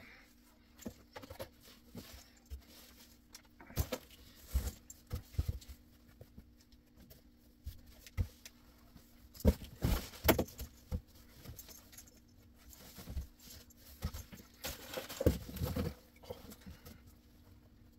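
Handling noise as plush toys are pulled from a cardboard box: rustling, knocks against the cardboard and light jangling rattles. The loudest clusters come about four, ten and fifteen seconds in.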